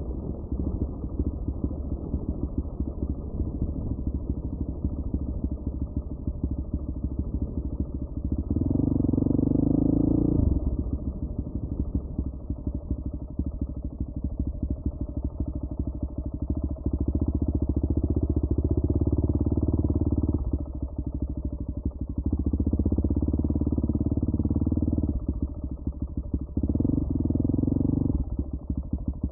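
Off-road motorcycle engine running while being ridden, heard close from the bike, the throttle opened into several louder pulls (one about a third of the way in with a rising pitch, more in the second half) and eased off between them. The sound is muffled, with nothing bright above the engine's low tones.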